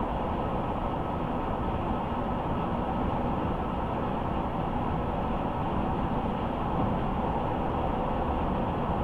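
Car driving along the road: a steady rumble of tyre and road noise that does not change.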